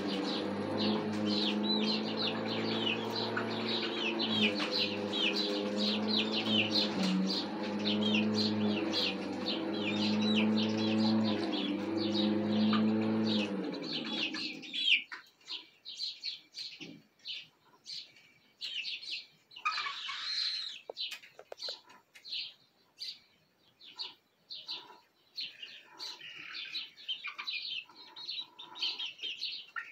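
Young chickens peeping and chirping on the roost, with dense rapid peeps in the first half and sparser, quieter ones later. A steady low hum runs under the first half and cuts off suddenly about halfway through.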